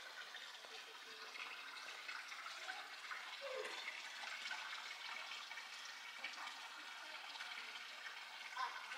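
Steady rush of running water, an even splashing hiss without pauses, with a short falling sound about three and a half seconds in.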